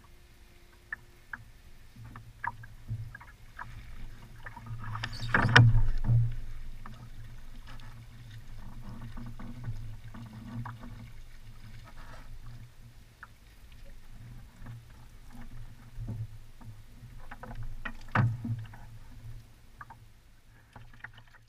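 Water lapping and slapping against the hull of a small boat on choppy water, with scattered knocks and clicks from rod and landing net being handled in the boat. Two louder thumps stand out, about five seconds in and near the end, the first the loudest.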